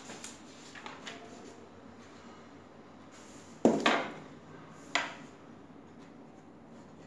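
Objects being handled on a hard surface: a few light clicks, then three sharp knocks, the loudest about three and a half seconds in and another about a second later.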